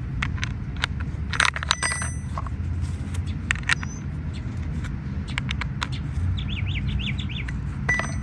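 Scattered sharp clicks and a few short, high metallic clinks from handling the small chainsaw and its tools after tightening. A bird twitters in a rapid trill about six seconds in, over a steady low rumble.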